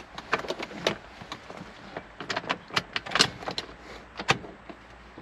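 Irregular clicks, taps and light rattles of multimeter probes and wiring being handled while a wire is probed for voltage.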